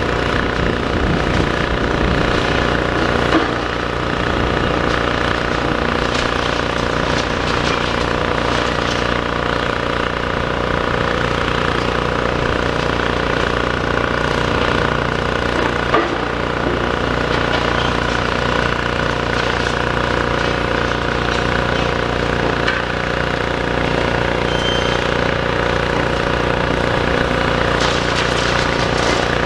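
Demolition excavator's diesel engine running steadily while it works, with a sharp knock about three seconds in and another about halfway through.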